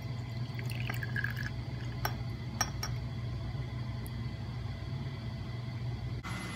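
Liquid pouring from a bottle into a shot glass, filling it, with a couple of light glass clinks about two seconds in, over a steady low hum.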